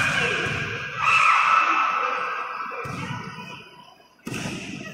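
Volleyball spectators screaming and cheering, swelling about a second in and dying down just after four seconds. There are sharp, abrupt restarts near three seconds and again near the end.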